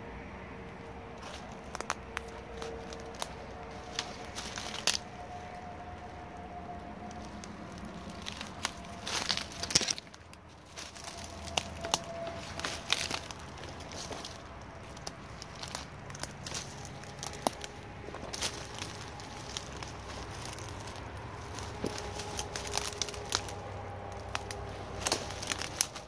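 Dry leaves, twigs and vine stems crackling and snapping underfoot and against the body as someone pushes through a dense thicket, in irregular clusters of crackles, loudest about ten seconds in.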